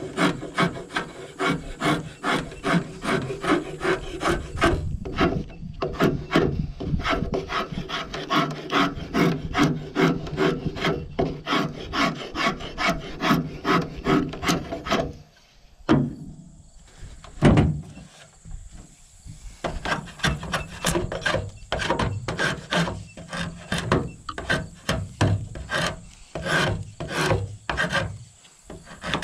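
Draw knife shaving an old wooden board, pulled in quick repeated strokes at about two a second, each a short scrape of steel through wood. About halfway the strokes stop for a few seconds, broken by a single knock, then carry on.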